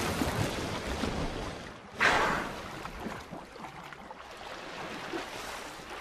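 Bottlenose dolphin crashing back into the sea after a leap, spray and water rushing and then fading. A second sharp splash comes about two seconds in, followed by softer sloshing of water.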